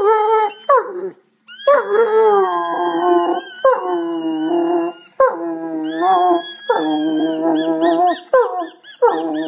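Irish wolfhound howling: a string of drawn-out howls, each a second or two long, each opening on a higher note and dropping into a steady held tone, with short breaks between them.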